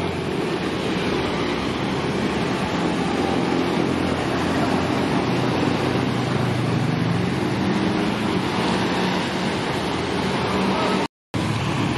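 Tour bus diesel engine running at low speed, under the steady hiss of traffic tyres on a wet road, with a low engine note that rises slightly partway through. The sound drops out for a moment near the end.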